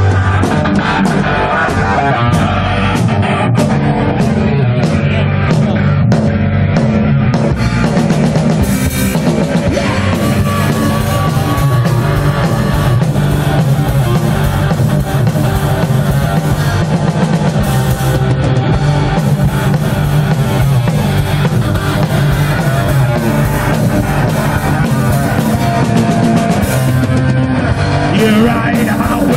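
Live heavy metal band playing loud: electric guitar over a drum kit, with separate drum hits standing out at first and the sound growing denser after about eight seconds.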